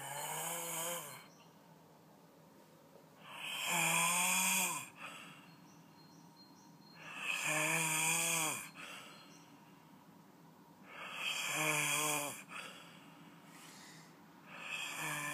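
A sleeper snoring with an unusual, pitched buzzing tone. Each snore lasts about a second and a half and comes roughly every four seconds, four times over with a fifth starting at the end.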